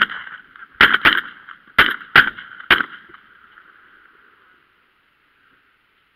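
A volley of about six shotgun shots fired in under three seconds at Canada geese flying overhead. Geese keep honking under the shots and fade out about four seconds in.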